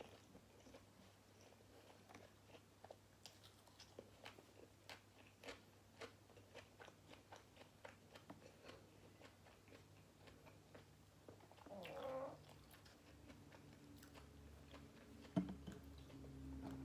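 Close-up chewing of crunchy food, many small crisp clicks and crunches. About twelve seconds in comes a brief wavering pitched cry, and a few seconds later a single thump, followed by a low steady hum.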